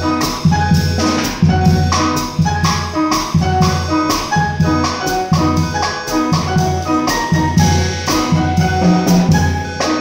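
Small jazz group playing: acoustic grand piano chords over a drum kit with cymbal strokes keeping time, and a steady run of low notes underneath.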